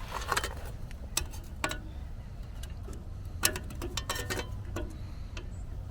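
Scattered sharp clicks and light metallic taps, irregularly spaced, from a new license plate being fastened to a trailer, over a low steady hum.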